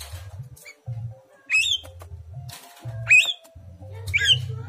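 Caged myna (jalak) giving three loud, harsh calls that rise in pitch, about one every second and a half. These are the calls of a bird in breeding condition asking to be paired.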